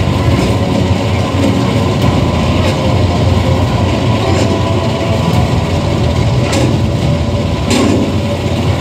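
Film soundtrack of a propeller aircraft in flight heard from beneath the fuselage: a steady, loud drone of engines and rushing air. Sharp knocks cut through it about seven times at uneven intervals.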